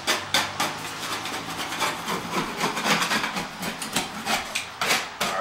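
Quick, repeated scraping strokes of a blade on drywall, about two or three a second, trimming and scraping the patch area flush.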